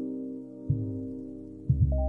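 Instrumental intro music of a Malaysian song: a held chord fades slowly, with low bass notes struck about a third of the way in and again twice near the end.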